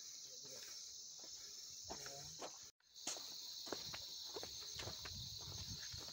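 Steady high-pitched chorus of insects in the hillside vegetation, with irregular footsteps on a dirt path. The sound cuts out completely for a moment about three seconds in.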